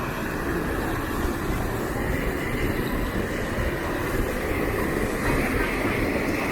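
Water flowing steadily over the stones of a small dam: a continuous, even rushing sound.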